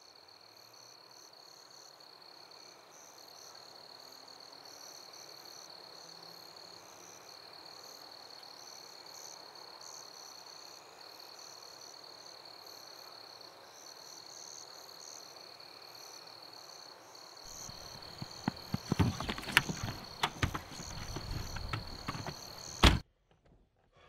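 Faint steady hiss with a thin high tone, then several seconds of irregular knocks and thumps. They end in one loud hit and the sound cuts off abruptly.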